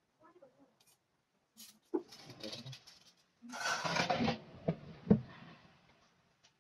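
Hot oil sizzling in bursts around lumpia frying in a pan, with a few sharp pops, the loudest about two and five seconds in.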